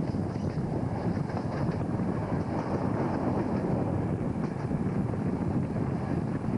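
Passenger train running at speed, heard from an open coach window: a steady rumble of wheels on the rails mixed with wind buffeting the microphone.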